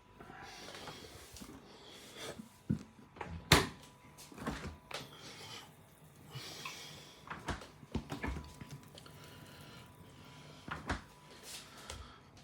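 A series of irregular knocks and clunks from a fridge freezer's door and drawer being handled, the loudest about three and a half seconds in.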